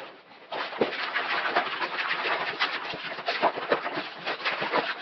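Hard-bristled scrubbing brush scrubbing wet, soapy nylon webbing and fabric, a quick continuous run of brush strokes starting about half a second in.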